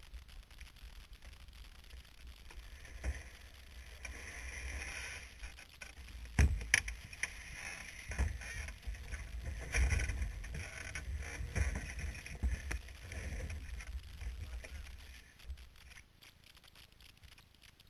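Formula car being pushed by hand: low rumble of the rolling car and wind on the onboard microphone, with scattered knocks and a sharp thump about six and a half seconds in. No engine is heard.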